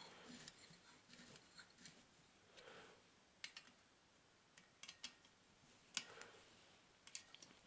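Faint, irregular metallic clicks of a hex key working the screws that fasten a chainsaw muffler to the cylinder.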